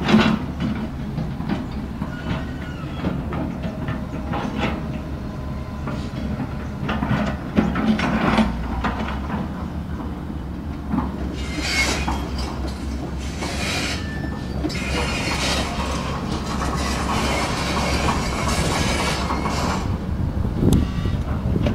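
Diesel engine of an XGMA tracked hydraulic excavator running steadily under load, with repeated knocks and cracks as it tears out brush and small trees. Near the end it drives on its steel tracks.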